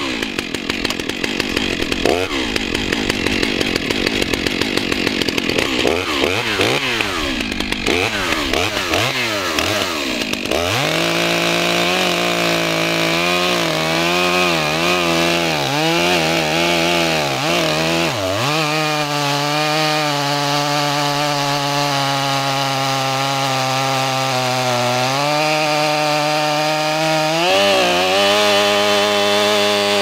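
Large new Stihl two-stroke chainsaw with a long bar cutting through the butt of a big red oak log. Its engine pitch wavers for the first ten seconds or so, then holds a steadier, lower pitch under load in the cut, with short dips and recoveries.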